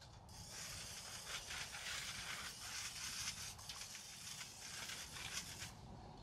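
Aluminum foil crinkling and rustling as it is crimped by hand around a campfire grate, a dense crackle that starts just after the beginning and stops shortly before the end.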